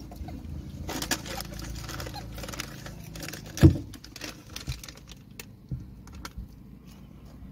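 A rhesus macaque's hands and feet tapping and scrabbling on a car's windscreen and bonnet, heard from inside the car, with many small clicks and one loud thump about three and a half seconds in as it jumps across the glass.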